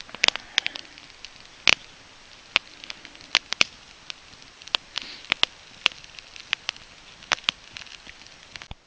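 Wood campfire crackling, with sharp irregular pops about once or twice a second over a faint hiss. It cuts off suddenly near the end.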